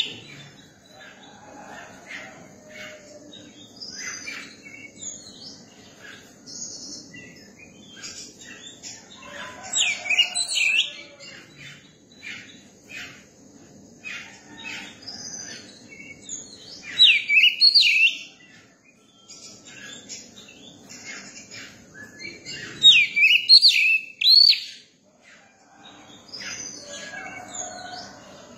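Oriental magpie-robin singing: varied whistled phrases with softer chirps in between. There are louder bursts of song about ten, seventeen and twenty-three seconds in.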